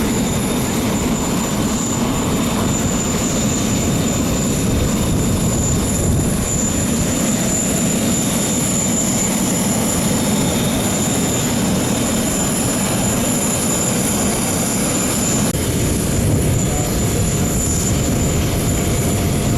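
Steady aircraft noise with a thin, high, steady whine over it. A few seconds before the end the upper part of the sound drops away abruptly, as at a cut.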